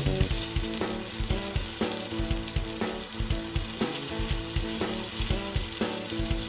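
Stick arc welding with a SUZUKID iMax120 SIM-120 DC inverter welder: the electrode's arc gives a steady crackling sizzle as it burns onto the steel. Background music with a steady beat plays underneath.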